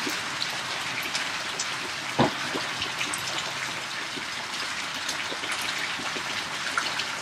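Steady rain falling, an even hiss with scattered sharper drops, and one louder knock about two seconds in.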